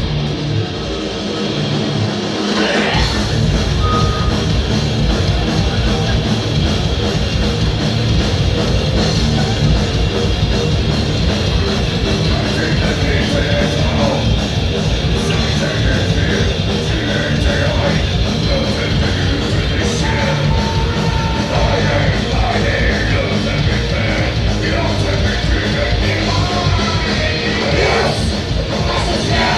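Live rock band playing loud, with vocals over the band; the bass and drums come in fully about three seconds in.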